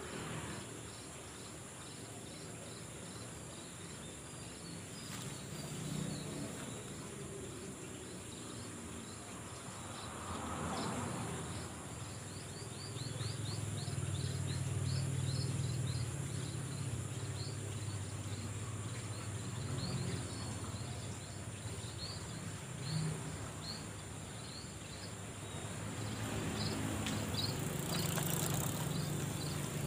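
Insects droning steadily at a high pitch, with a quick repeated chirping over them. A low hum swells twice, once about halfway through and again near the end.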